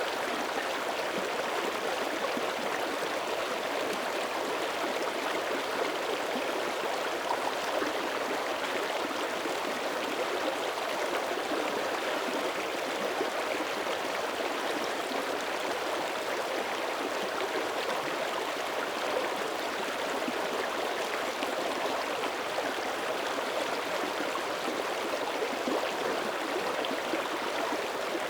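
A mountain creek running steadily over rocks, an even rush of water with gurgling and trickling, the current still open beneath thin early-winter surface ice.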